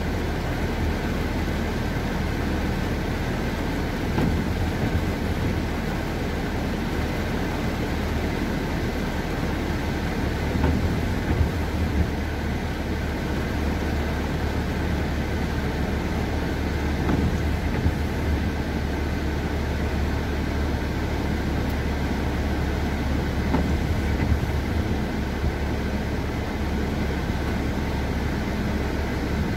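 Steady low rumble and hiss heard inside a car cabin as the car drives slowly along a rain-soaked road, with tyres on wet tarmac and rain on the windscreen.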